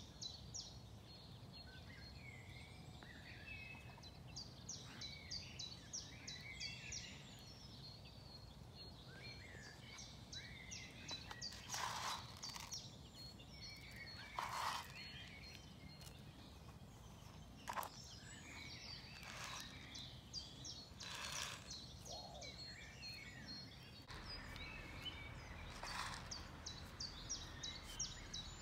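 Outdoor ambience of small songbirds singing and calling: quick runs of repeated high notes and scattered chirps over a low steady rumble, with about five louder short sounds spread through it.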